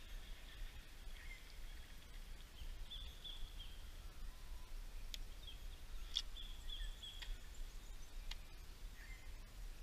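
Outdoor ambience of birds chirping steadily with high, repeated calls, over a low rumble and a few faint clicks.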